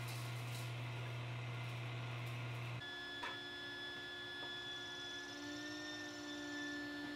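Steady hum of shop power-tool motors running without cutting. A low hum stops abruptly about three seconds in and gives way to a steadier, higher whine made of several steady tones.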